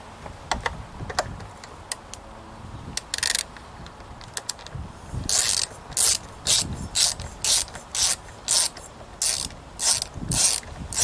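Ratcheting clicks at a lawn mower's wheel: a few scattered clicks and knocks, then from about five seconds in a run of short rapid ratcheting strokes, about two a second.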